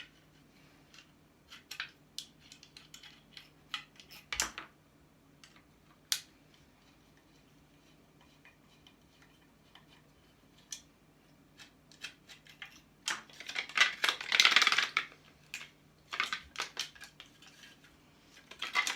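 Hand tools and small metal and plastic parts clicking and clinking as an appliance is taken apart for scrap, with a busier, louder stretch of clattering about two-thirds of the way through.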